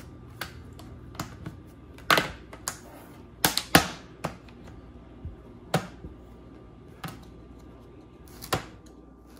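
The plastic clips of an HP Pavilion 15 laptop's bottom cover unsnapping as a pry tool works along the edge: about ten sharp clicks at uneven intervals, the loudest near the middle.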